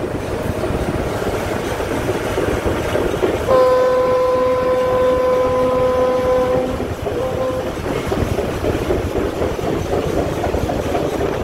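Leslie S-25 "Trombone" air horn on a Budd RDC railcar sounds one long blast about three and a half seconds in, then a short one. Under the horn the car's Detroit Diesel engines are running and the wheels clatter over rail joints as the railcar pulls away.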